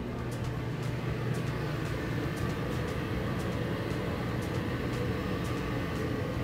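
Steady low machinery drone aboard a ship, engine and ventilation hum filling the galley, with a faint tick about twice a second.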